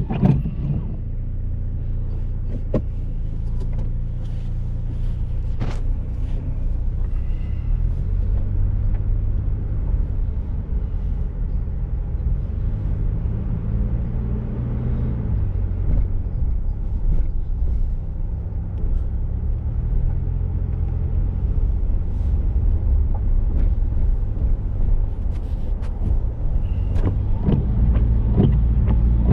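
Car driving: a steady low engine hum with road noise, its pitch shifting around the middle, with scattered short clicks and knocks.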